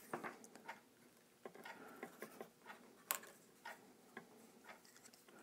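Faint scattered clicks and taps of pliers and a soldering iron tip on a bass volume pot, as a lug tab is pushed against the solder on the pot's metal casing. One sharper click comes about three seconds in.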